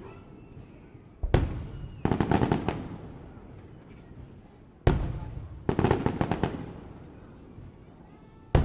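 Aerial fireworks shells bursting: a loud bang about a second in, another about five seconds in and a third near the end, the first two each followed by a quick rattle of crackling.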